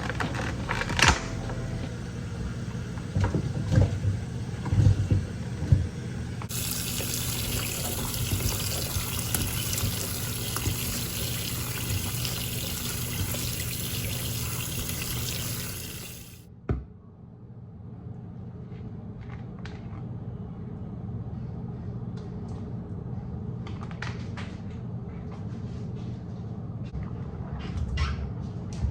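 Water running from a tap for about ten seconds, starting and stopping abruptly, with a few knocks and some clatter around it.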